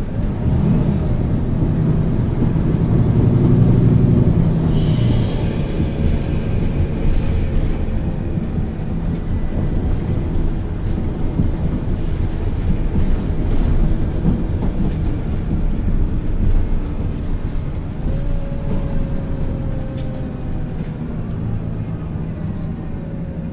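MAN Lions City Euro 6 city bus's diesel engine pulling hard, loudest a few seconds in, with a rising whine as it gathers speed, then running on more evenly; a second rising whine comes in near the end.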